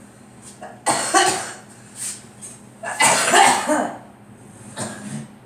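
A girl coughing: two loud bouts of coughs about two seconds apart, with a few lighter coughs between and near the end.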